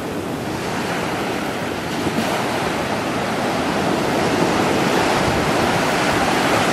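Ocean surf washing onto a beach, a steady rush of waves that swells louder through the second half.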